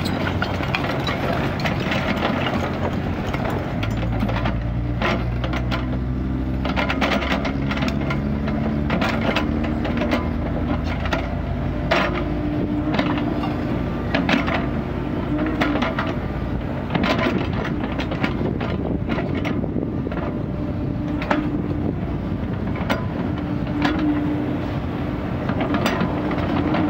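Kubota mini excavator's diesel engine running steadily under load, its pitch shifting as the boom and bucket work, with short knocks and scrapes of the steel bucket biting into dirt and stones every second or two.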